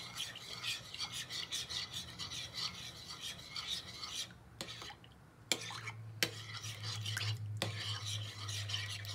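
A metal spoon stirring a liquid gelatin mixture in a mixing bowl, scraping the bowl in quick, repeated strokes. The stirring pauses briefly about halfway, then resumes with a few sharp clinks of spoon on bowl. This is the mixing of the hot and cold water into the dissolved gelatin.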